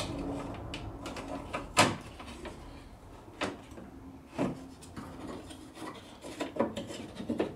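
Door-lock and central-locking actuator parts knocking and scraping against the inside of a car door as they are worked loose by hand: a handful of sharp knocks, the loudest about two seconds in, over light rubbing.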